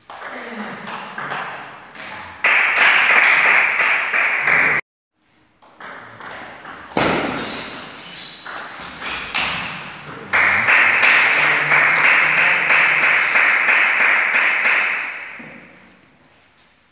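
Table tennis rally: the ball clicking off rackets and table in quick succession. Two long stretches of loud, steady noise cover the clicks, and the sound cuts out completely for about half a second just before five seconds in.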